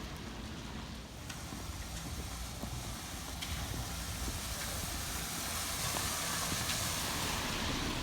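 A passing vehicle: a noisy hiss over a low rumble that builds from about a second in and is loudest near the end, with rain falling.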